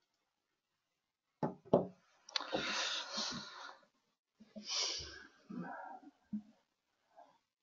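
A person breathing and making mouth and throat noises close to the microphone. About a second and a half in there are two sharp clicks, then two long breathy exhales with a few short throat sounds.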